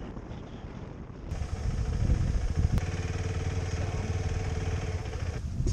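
Motorcycle engine running while riding, heard from the bike itself, first under a low drone of wind and road noise. About a second in it turns louder, with a steady, even engine drone.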